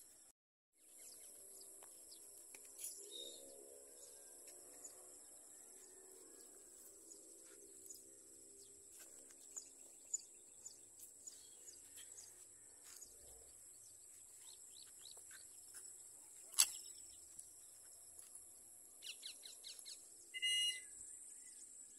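Faint open-air ambience: scattered small bird chirps over a steady high-pitched hiss, with a faint low hum for much of it. A sharp click comes about two-thirds of the way in, and a brief louder bird call near the end.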